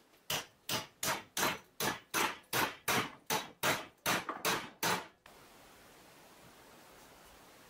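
Hammer blows on a square steel profile tube, driving one tube's cut end into the other to join them without welding. About a dozen even strikes, two or three a second, each with a short metallic ring, stop about five seconds in.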